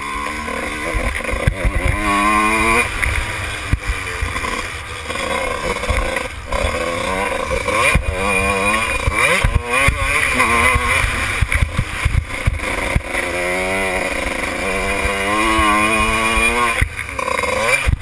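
Kawasaki KX125 two-stroke motocross engine ridden hard, its pitch climbing and dropping back several times as the throttle opens and shuts, with wind rumble and knocks on the on-bike microphone.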